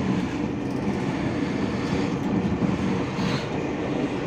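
Steady low rumble of an electric commuter train, heard from inside a passenger carriage.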